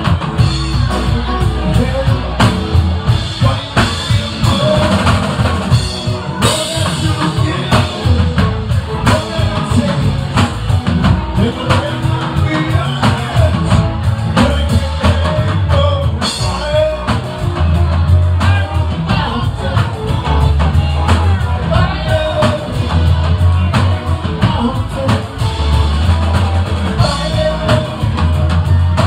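Live rock band playing loudly: a drum kit, electric guitars and a bass line, with singing.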